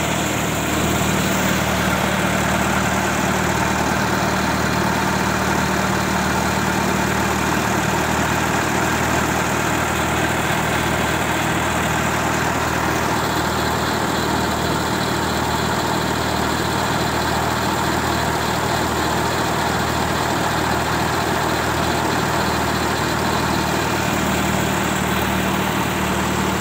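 Fordson Super Major tractor's diesel engine idling steadily.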